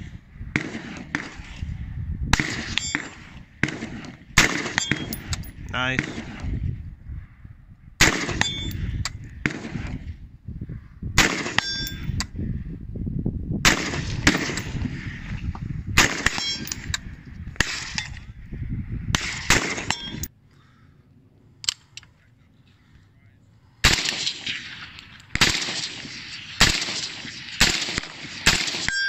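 Colt Commando short-barrelled 5.56 mm carbine fired in single shots, a second or two apart, with distant steel targets ringing on hits. After a brief quiet break about two-thirds through, an AK-74M rifle fires a string of shots.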